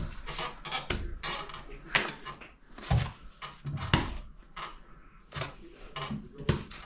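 Plastering tools scraping and knocking against gypsum plaster on a wall, in an irregular run of short, sharp strokes.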